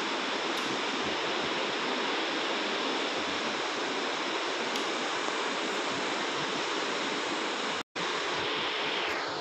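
A steady, even hiss like rushing air, with a split-second dropout about eight seconds in.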